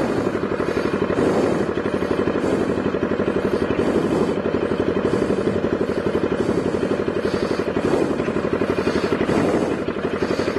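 Bajaj Pulsar 200NS single-cylinder engine idling with its exhaust silencer broken off, giving a loud, rapid, even pulsing of an open exhaust.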